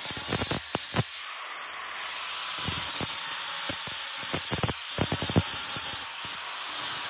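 Angle grinder with a thin cutting disc slicing through a square steel tube: a loud grinding hiss that surges and dips with short breaks as the disc bites into the metal.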